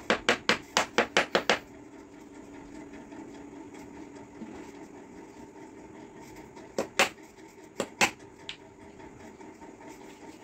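Hand hammer striking against the wall: a quick run of about eight taps in the first second and a half, then a pause, then about five more blows in two pairs and a single near the end.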